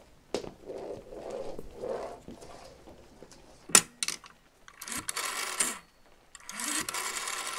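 Sound effects of an old telephone being worked before a call: a few clicks and a sharp knock, then two bursts of mechanical whirring of about a second each in the second half.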